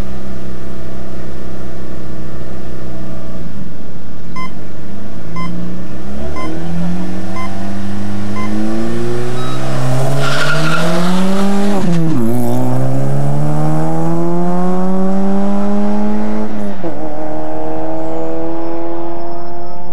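Peugeot 206 rally car's engine running at the start line while the start clock gives five short beeps about a second apart, then revving up and launching with a burst of tyre squeal about ten seconds in. The engine climbs through the gears, its pitch dropping at each upshift, about twelve and seventeen seconds in.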